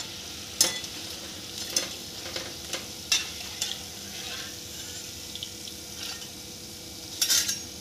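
Hot oil in a steel kadhai sizzling steadily as deep-fried maida snacks are lifted out. A metal skimmer and a wire-mesh strainer clink sharply against the wok and each other about ten times, with a louder flurry of clinks near the end as the snacks are pressed to drain off excess oil.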